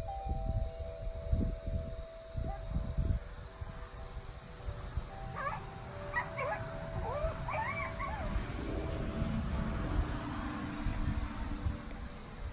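Insect chirping steadily, about three chirps a second, over low rumbling thumps. A short run of squeaky rising-and-falling calls comes in the middle.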